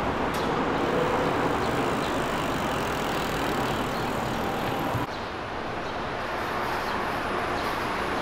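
City street ambience: steady traffic noise from passing vehicles. The background drops a little quieter and changes about five seconds in.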